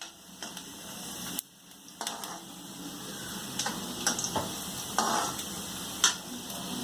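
Peanuts and chopped onion sizzling in hot oil in a pan, stirred with a spoon that clicks against the pan several times.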